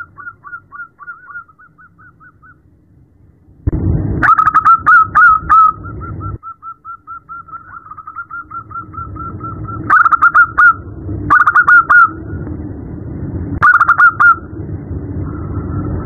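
Female zebra dove (perkutut) calling: a rapid series of short coo notes, about five a second, in long runs with several louder bursts. Low background rumble underneath from about four seconds in.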